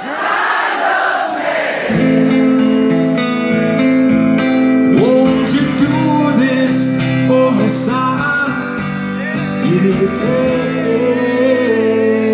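Live music: acoustic guitars begin playing steady chords about two seconds in, after a wash of crowd singing, with a bending melody line over them from about the middle on.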